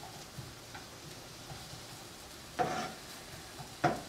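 Chopped mushrooms and bell peppers sizzling softly in a nonstick frying pan while a plastic slotted spatula stirs them, with two louder scrapes of the spatula against the pan in the second half.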